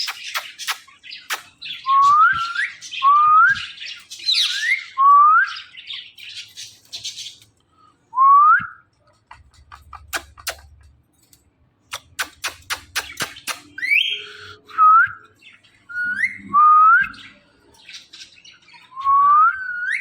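Pet parrot whistling: about eight short upward-sliding whistled notes, with quick runs of sharp clicks between them.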